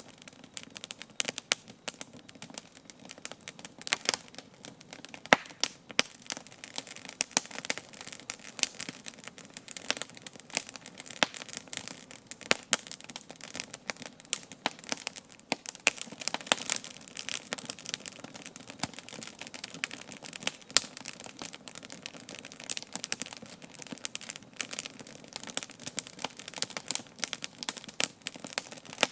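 Wood campfire crackling, with dense, irregular sharp snaps and pops, several a second.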